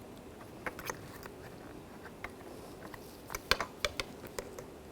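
Small, irregular clicks and scrapes of a metal pick working under a plastic window-weatherstrip retaining clip to pry it out, with more clicks bunched in the second half.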